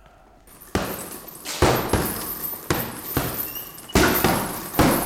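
Boxing gloves punching a hanging heavy bag: a hard thud about once a second, each followed by the jingle of the bag's hanging chain.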